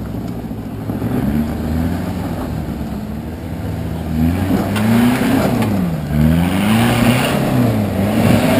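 Toyota Land Cruiser 70-series 4x4's engine revving up and down repeatedly as it climbs a steep dirt bank off-road, its pitch rising and falling every second or two. It grows louder as the truck comes closer.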